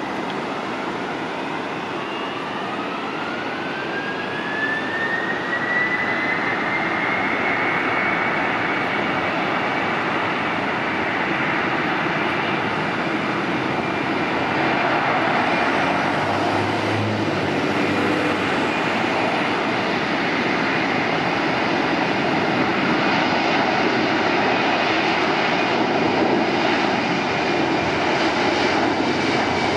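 Boeing 767-300ER's twin turbofan engines spooling up to takeoff power: a whine rises in pitch over the first several seconds, then a steady jet roar holds as the airliner accelerates down the runway.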